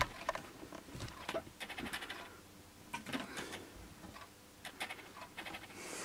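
Faint, scattered clicks and rustles of handling noise, a few irregular light taps with quiet between them.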